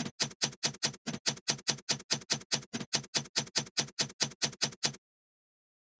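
Typing sound effect: rapid, evenly spaced keystroke clicks, about five a second, that cut off suddenly about five seconds in.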